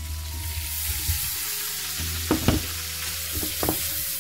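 Paneer cubes dropped into a pan of hot melted butter, sizzling, the hiss building over the first second as the pieces hit the fat. A few soft knocks about two and a half seconds in and again near the end.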